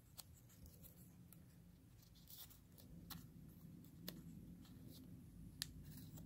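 Faint rustling and a few small crisp ticks of a folded paper insert being handled and unfolded by hand, the clearest tick near the end.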